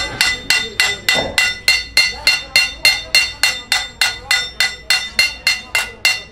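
Small hammer tapping steadily on metal of a heavy truck clutch pressure plate, about three strikes a second, each strike ringing briefly.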